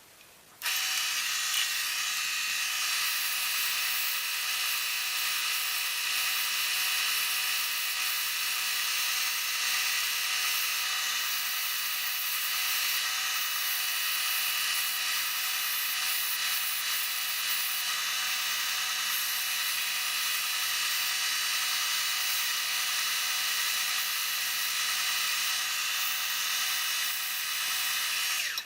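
Wood lathe running steadily while turning a Northern Catalpa pencil blank: a steady motor whine with an even hiss over it. It starts about half a second in.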